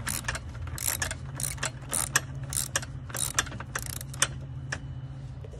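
Socket ratchet with a 10 mm socket clicking in short rasping bursts on each back-stroke as it runs down the bolt of a car battery's hold-down clamp.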